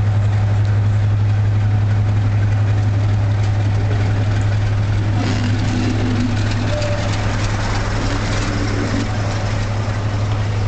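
Class 47 diesel locomotive's Sulzer twin-bank 12-cylinder engine idling with a steady, deep drone, a sound said to be just like a Deltic's. About halfway, a little more hiss and some faint higher tones join in.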